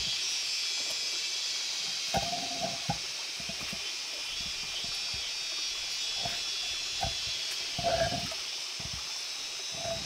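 Steady high-pitched hiss, with a few short mid-pitched sounds about two, seven and eight seconds in.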